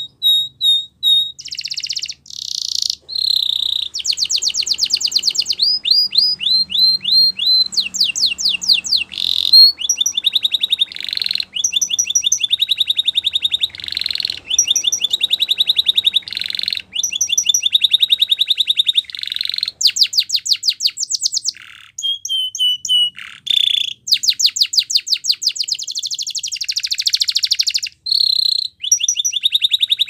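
Canary singing a long, loud song of fast trills and rolling runs of rapidly repeated high notes, switching from one phrase to the next with only short breaks.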